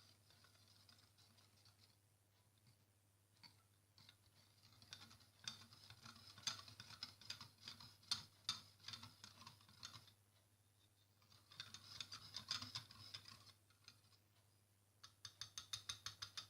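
Spoon stirring a lumpy flour, salt and water mixture in a deep plate, scraping and clicking against the plate in bursts, with a quick run of about five taps a second near the end.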